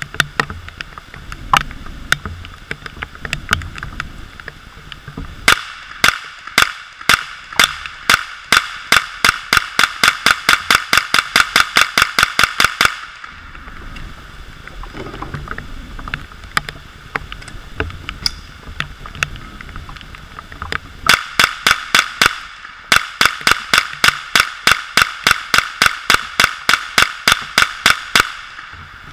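Rifle fired in two long strings of rapid shots, about three a second, each string running for about seven seconds. Steady rain noise fills the gaps between the strings.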